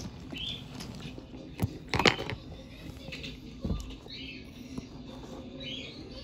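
Munipals toy subway train pushed by hand along wooden track: wheels rolling with a low rumble, a few sharp clicks and knocks (loudest about two seconds in), and short high chirps in between.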